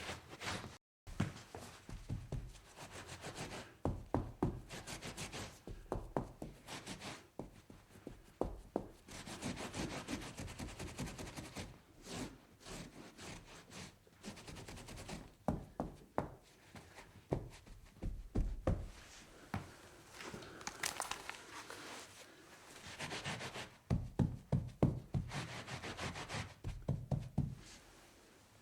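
Someone cleaning up a spill: stretches of rubbing and wiping against a surface, with many irregular knocks and clunks of objects being handled and set down on a hard surface.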